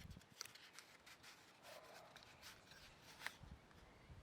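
Faint rustling and small clicks of a small flashlight box being opened by its pull tab and handled, with one sharper click about three seconds in.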